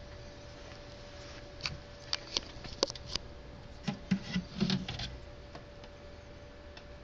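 Handling noise: an irregular run of sharp clicks and a few dull knocks over about three seconds, from about two seconds in, as the handheld camera moves close against the terrarium's screen mesh. A steady faint hum runs underneath.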